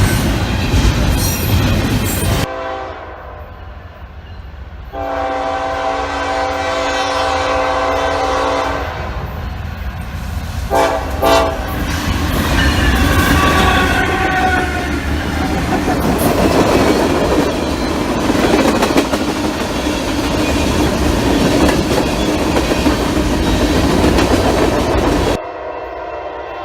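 Diesel freight locomotive horn sounding a long chord, then two short blasts, followed by the train passing with a heavy rumble and clickety-clack of wheels over rail joints. The clip is edited, with abrupt cuts about two seconds in and near the end.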